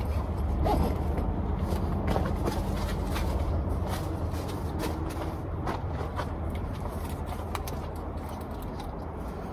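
A low, steady engine hum that fades slightly, with scattered small clicks and rustles.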